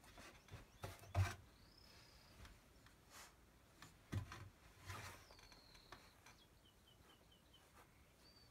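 A saluki puppy moving about on a bed: soft knocks and rustles from its paws on the duvet and the wooden bed rail, loudest about a second in. Faint, high, thin chirps and whistles come and go between them, with a short row of quick chirps late on.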